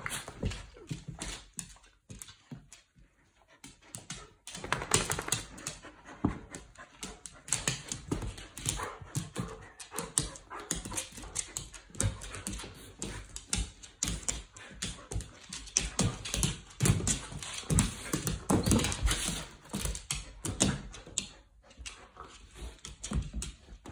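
Two dogs play-fighting, making dog vocal noises amid quick scuffles. The sounds are sparse for the first few seconds, then come thick and near-continuous from about four seconds in.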